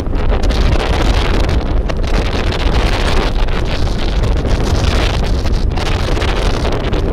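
Strong wind buffeting the microphone: a loud, steady, gusting rumble.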